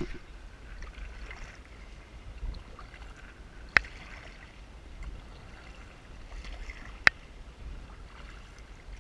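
Sea kayak moving over calm shallow water: faint water noise and a low rumble, broken by two sharp knocks about three seconds apart.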